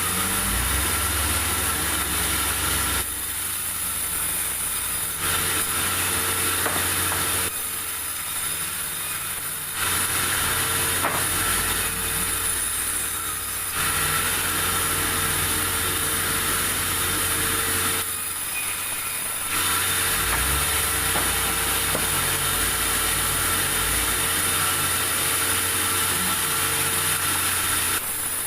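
Sawmill saw running and cutting through durian wood, with a steady machine tone under the cutting noise. The high cutting noise drops away briefly three times, then comes back.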